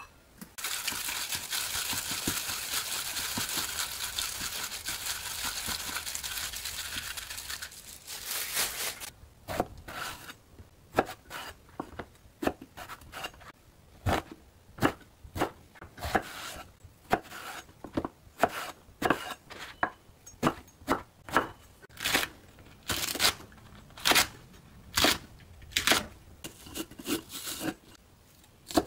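Chef's knife slicing eggplant, then green onion, on an end-grain wooden cutting board: sharp knocks about one a second. The first several seconds are a steady rustling hiss from an unclear source.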